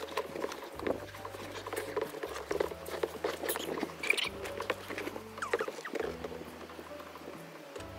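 Irregular scuffs, scrapes and knocks as a person hauls herself out of a kayak up onto a high bank edge, with a sharper knock about four seconds in.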